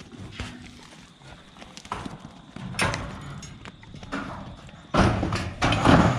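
Sheep moving through the drafting yards: hooves clattering with scattered knocks and rattles, loudest and busiest about five to six seconds in.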